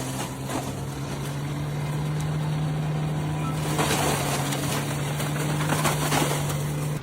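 A machine's engine running steadily: a constant low hum with hissing noise over it, which swells briefly about four seconds in and again near the end.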